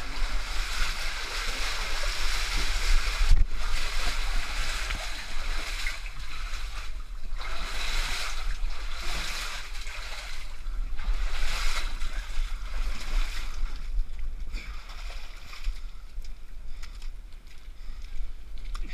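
Muddy water splashing and sloshing in repeated surges as people wade through it, over a low rumble on the microphone.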